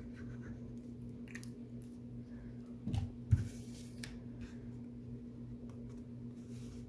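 Faint squishing and scraping of a liquid glue bottle's sponge tip drawn across cardstock, with light paper handling sounds, and one low thump about three seconds in. A steady low hum runs underneath.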